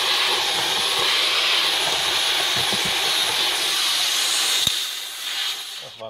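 Dyson V11 cordless stick vacuum running with a steady, hissing rush of air through a small nozzle. A sharp click comes a little before the end, and the motor then winds down and stops.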